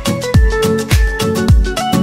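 Background music with a steady beat: a deep kick drum about twice a second under percussion and a melody.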